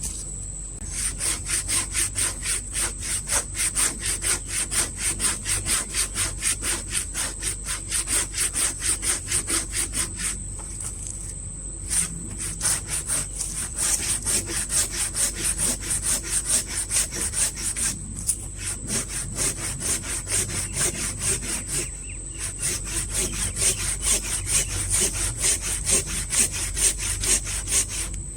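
Hand saw cutting through a chinaberry trunk in steady back-and-forth strokes, about two a second, with a few short pauses. The blade is binding in the cut.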